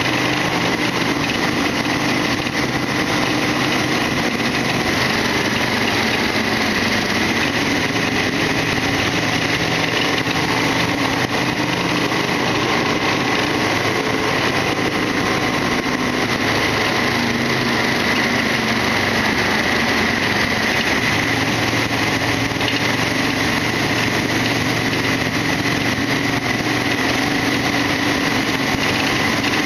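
Harley-Davidson XL1200R Sportster's air-cooled 1200 cc V-twin running at a steady, even pace while riding, with no revving up or down.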